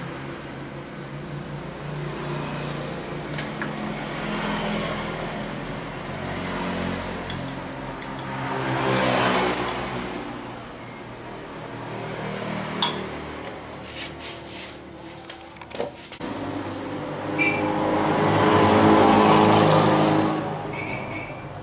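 Mitsubishi sewing machine running, speeding up and slowing down twice, with a few sharp clicks along the way.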